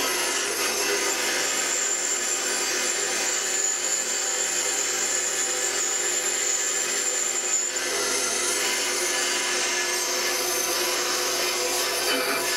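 Bandsaw running and ripping a long wooden board, a steady rasping cut. A thin high tone in the sound stops about eight seconds in.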